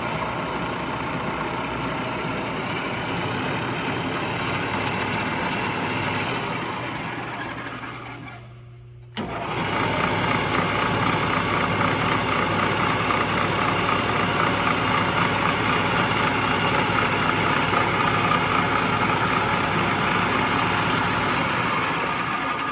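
Rockwell Model 20 drill press running under power, motor and spindle turning. It runs down about six to eight seconds in, is switched back on suddenly about nine seconds in and runs louder, then winds down at the end.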